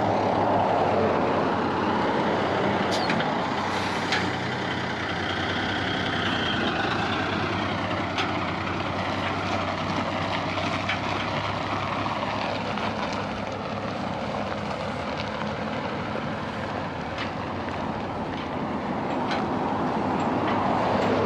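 Ex-military 5-ton 6x6 truck's engine running steadily as the truck turns and pulls away along the road shoulder, with a few short clicks.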